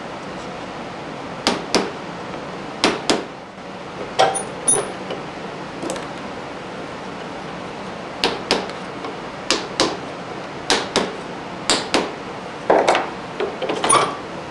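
A wood chisel struck with a mallet, paring a dovetail joint back to its scribe marks. Sharp taps come mostly in pairs about a third of a second apart, a pair every second or so, with a short scraping sound near the end.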